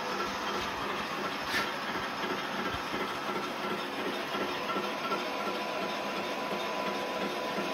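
Steady machinery running noise with an even hiss, continuing without a break.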